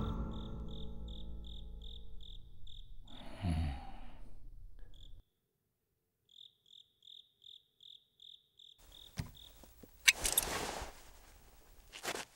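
Crickets chirping steadily, about three chirps a second, while the last of a music chord dies away and cuts off about five seconds in. A low falling swoop comes about three and a half seconds in, and near the end a short rush of noise and a few sharp clicks.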